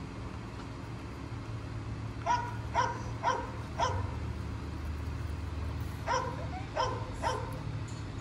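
Dog barking in two short runs: four barks, a pause of about two seconds, then three more.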